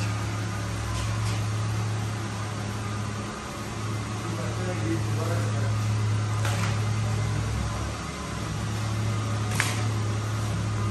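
Steady low mechanical hum, such as shop ventilation or air-conditioning equipment makes, dipping briefly twice, with two faint clicks in the second half.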